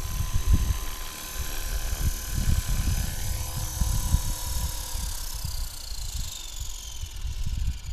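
450-class RC helicopter hovering low and touching down. Its motor and gear whine falls in pitch over the last few seconds as the rotor spools down. A gusty rumble of rotor wash hits the microphone throughout.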